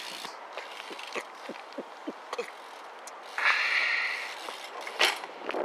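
BMX bike on stone paving: a short hiss of a tyre sliding about three and a half seconds in, then a single sharp clack about a second later.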